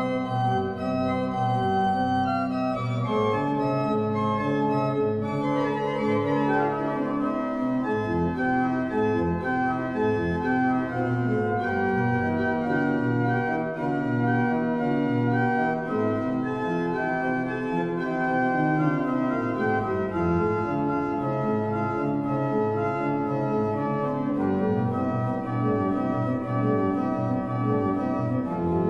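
The small 1511 Jan van Covelens pipe organ playing on soft flute stops, Holpijp 8' and Koppeldoof 4'. Several notes sound at once, with the parts moving against each other in steady, held tones.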